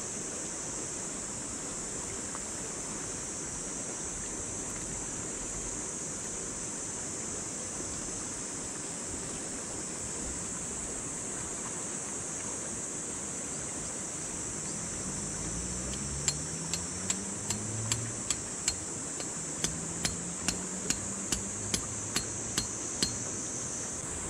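Tent peg being hammered into the ground: a run of about fifteen sharp metallic strikes, roughly two a second, starting about two-thirds of the way in.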